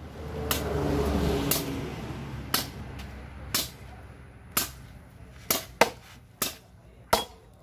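Machete blows chopping hard firewood logs: sharp strikes about once a second, two of them close together about six seconds in. A rushing noise swells and fades over the first two seconds.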